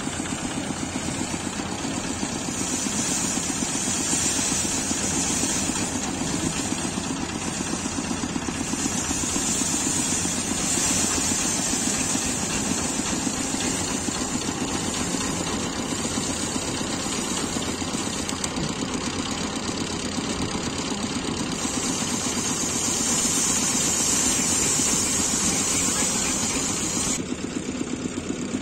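Engine-driven paddy drum thresher running steadily, its small engine and spinning spiked drum going together, with a hiss that swells and fades as rice sheaves are held against the drum and the grain is stripped off.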